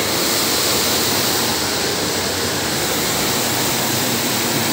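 Automatic carpet-washing machine running: water pouring from its spray pipe onto the rotating disc brushes as a wet rug passes under them, a steady, loud rush of water and scrubbing over a low hum.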